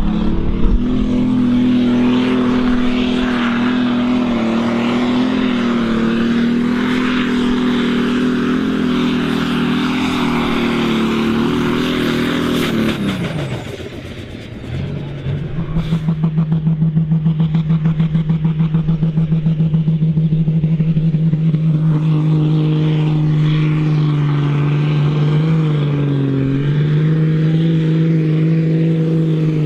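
Modified Ford diesel pulling tractors at full throttle, dragging a weight sled, with a steady high-revving engine note. About halfway through the note drops away sharply. A second tractor's engine then comes in at a lower, pulsing note and holds to the end.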